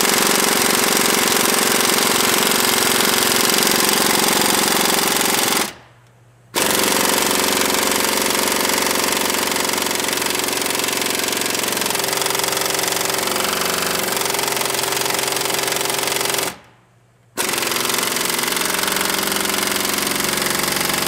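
Pneumatic air hammer rattling continuously as it drives out the rusted-in upper control arm pin and bushing. It stops briefly twice, about six and seventeen seconds in.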